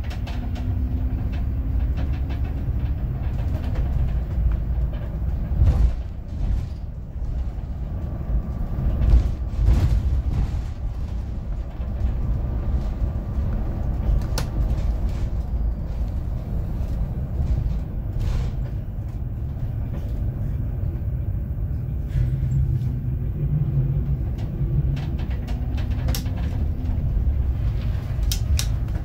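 City bus in motion, heard from inside: a steady low engine and road rumble, with scattered knocks and rattles from the body.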